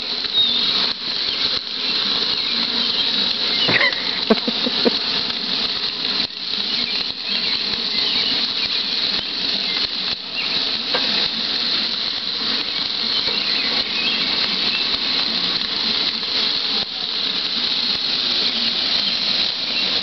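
Meat and peppers sizzling over a gas grill's flaring grease fire: a steady crackling hiss. A short high squeal comes about four seconds in.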